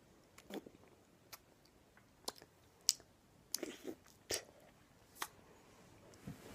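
Children biting into and chewing a frozen Solero ice lolly: a scattering of short, soft bites and mouth clicks at irregular intervals.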